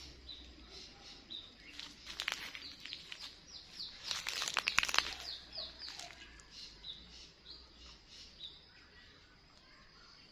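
Small birds chirping over and over in short, falling notes. Leaves and twigs rustle and crackle close by, loudest about four to five seconds in.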